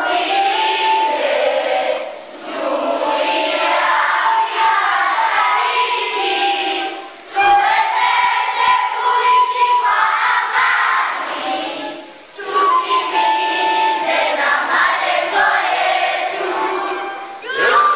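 A group of young children singing together, in sung phrases a few seconds long with brief pauses for breath between them.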